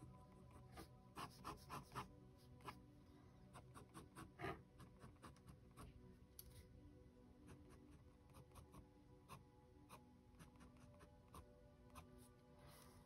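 Ink pen scratching on sketchbook paper in short, quick hatching strokes, faint, and busiest in the first half.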